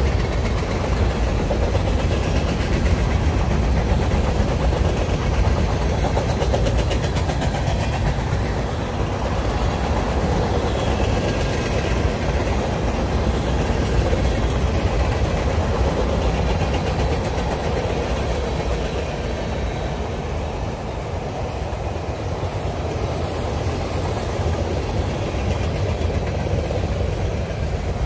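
Mixed freight train's cars rolling past, covered hoppers and then autorack cars: a steady low rumble of steel wheels on rail, a little quieter in the second half.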